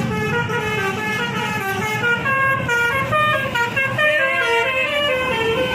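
Basuri telolet bus horn, a multi-trumpet musical air horn, playing a quick melody of stepped notes with several tones sounding together.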